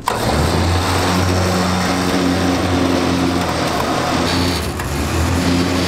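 An engine idling steadily with a low, even hum that wavers slightly now and then.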